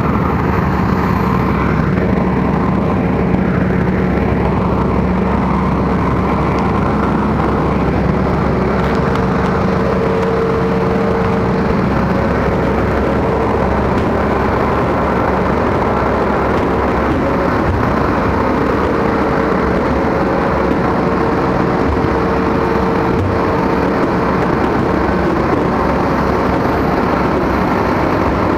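Steady drone of aircraft ground machinery on an airport apron, with a constant low hum and a higher whine over it.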